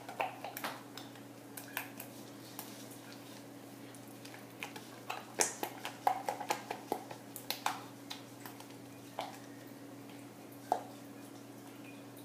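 A stirring tool clicking and scraping against the inside of a plastic mixing cup as thick cold-process soap batter is stirred, in scattered knocks that come in clusters, with a steady low hum underneath.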